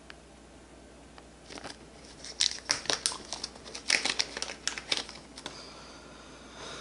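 Small plastic zip-lock bag crinkling and rustling as it is handled. The rustling is a run of sharp crackles that starts about a second and a half in and lasts about four seconds.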